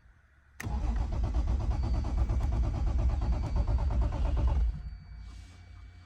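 1989 Toyota Supra Turbo's 7M-GTE inline-six being cranked by the starter for about four seconds without catching, then cut off. It turns over but does not fire: the owner reports no spark while the fuel pump runs.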